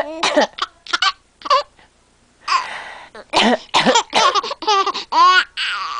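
A woman coughing several times in short, sharp coughs, then a baby laughing in a string of short, high giggles through the second half.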